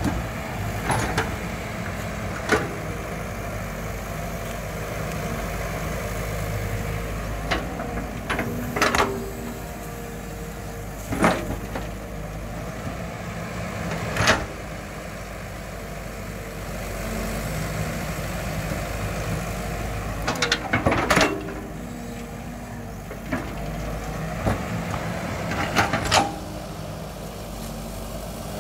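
Caterpillar E120B tracked excavator's diesel engine running steadily as it digs, with sharp clanks from the bucket and arm every few seconds, some single and some in quick clusters of two or three.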